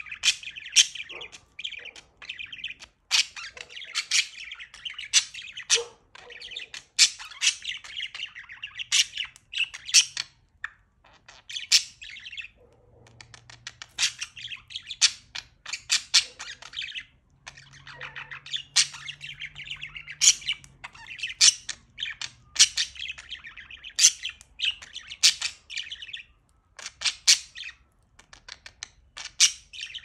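Budgerigar warbling: a long, rambling run of chatter mixed with sharp clicks and high chirps, broken by a few short pauses.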